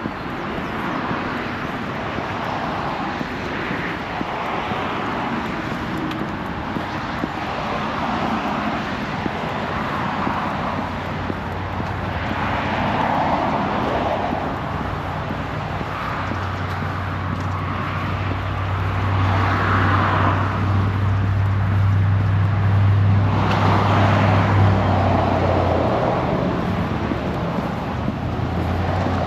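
Outdoor traffic ambience: vehicles swell in and out every few seconds, and a low steady engine hum builds through the middle and stays strongest until near the end.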